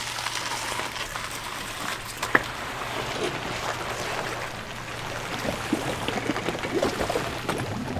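Lake shallows splashing and trickling around a boat trailer's wheels and frame as it is backed down a gravel launch into the water, over a low steady hum. A single sharp click comes about two and a half seconds in.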